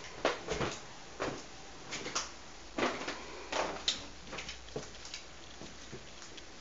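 A string of irregular knocks and clicks, about one or two a second, from footsteps on the floor and handling of a handheld camera as it is carried through a doorway.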